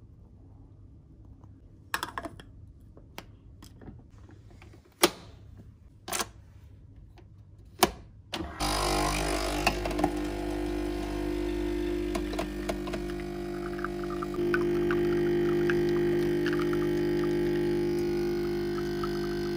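A few sharp clicks and knocks as a Nespresso capsule coffee machine is loaded and closed, then its pump starts with a loud steady buzzing hum while it brews. The hum steps up louder about fourteen seconds in.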